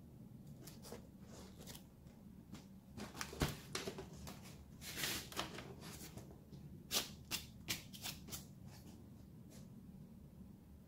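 Faint, scattered rustling and light scrapes of hands handling a paper-covered cardboard mask, thickest through the middle, over a steady low hum.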